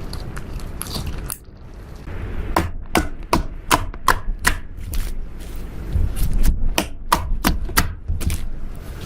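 Slime being kneaded and pressed by hand, giving a run of sharp, irregular clicks and pops, about two or three a second from a couple of seconds in, over a low handling rumble.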